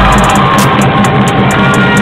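Loud music with a fast, steady beat.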